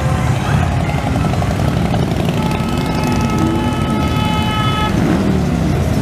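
Harley-Davidson V-twin motorcycles rumbling past in a steady stream, with a horn sounded steadily for about two and a half seconds in the middle.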